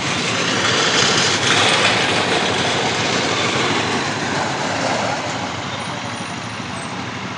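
Road traffic noise with a motor vehicle's engine running close by. It is louder for the first five seconds, then eases off slightly.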